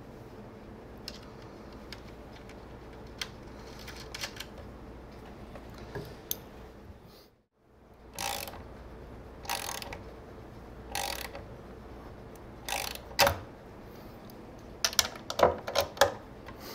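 Hand ratchet wrench tightening bolts in a wooden chair frame: short ratcheting strokes every second or two, coming quicker and louder near the end, after a brief drop-out about halfway.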